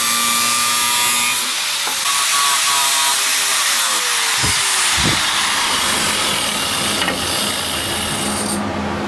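Angle grinder's cutoff wheel cutting through stainless steel pipe, then a spinning buffing wheel worked against the cut end of the pipe. The motor's pitch slowly falls a few seconds in, and the grinding hiss drops away near the end.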